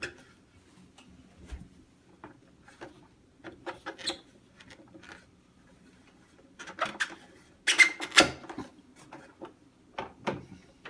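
Plastic handling noises of a Dyson AM06 fan being put back together: scattered light clicks and rubs as the ring is fitted onto the base. About eight seconds in comes a louder burst of plastic scraping and squeaking as it is twisted into place.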